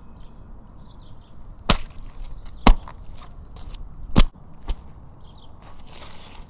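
A sneaker stomping on water beads (Orbeez) and cups on wet pavement, crushing them: three loud stomps about a second apart and a lighter one after, with small crunches between.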